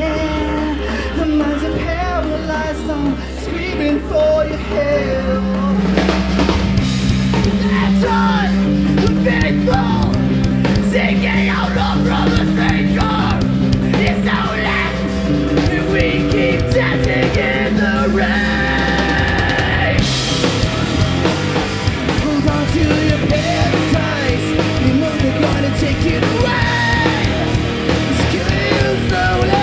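Live heavy rock band playing loud, with drum kit and vocals. About six seconds in the full band comes in harder, and around twenty seconds in it gets fuller and brighter again.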